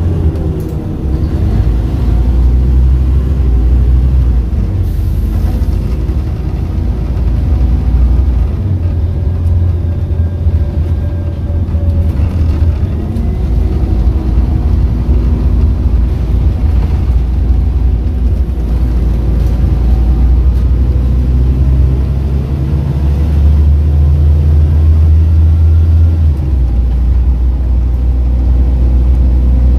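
Interior sound of a Scania N230UD double-decker bus on the move: its diesel engine runs under load over a steady heavy low rumble of road and tyre noise. The engine note rises and falls a few times as the bus speeds up and eases off.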